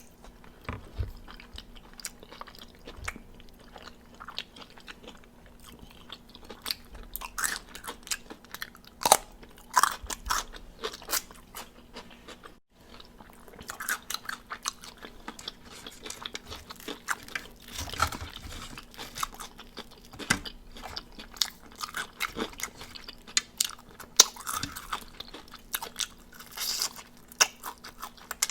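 Close-up chewing of crispy fried chicken wings: irregular crunches and crackles throughout, with a brief break about halfway through.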